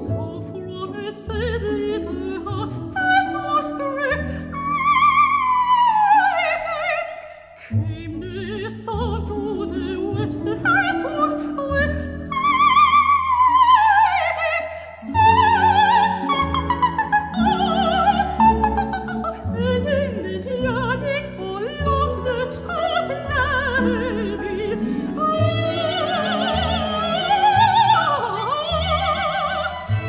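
Coloratura soprano singing with a symphony orchestra: two long runs sweeping downward, then rapid, wavering ornamented high notes near the end over sustained orchestral chords.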